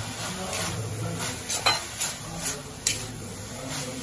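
A spoon stirring and scraping in a frying pan, turning a banana-stem stir-fry that has just had pepper added. There are short irregular knocks and scrapes, about two a second, over a light sizzle.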